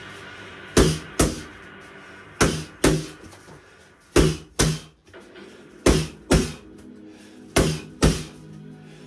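Boxing gloves smacking into focus mitts in quick one-two pairs: five pairs of hits, the two hits in each about half a second apart, a pair coming every second and a half or so.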